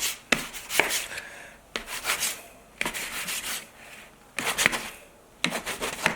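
A utensil scraping across a tray in about five strokes, roughly one a second, as sticky mochi is cut into chunks.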